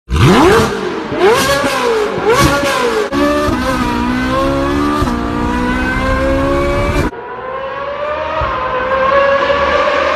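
Ferrari engine revved loudly: a sharp rev at the start and two quick blips, then held at a steady, slowly climbing pitch. About seven seconds in the sound cuts abruptly to a duller engine note that slowly rises and falls.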